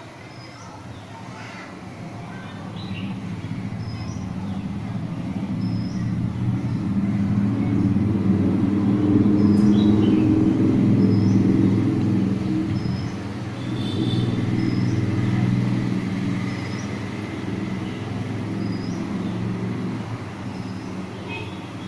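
Low engine rumble of a passing motor vehicle, growing louder to a peak about halfway through and then slowly fading. Faint short high chirps repeat about every second and a half.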